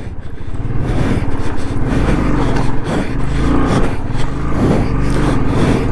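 Royal Enfield Bullet's single-cylinder engine pulling under load up a steep, rough hillside climb. Its pitch rises and falls as the throttle is worked.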